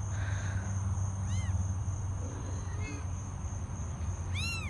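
Cat meowing: two short, high-pitched mews, one about a second and a half in and one near the end, each rising then falling in pitch.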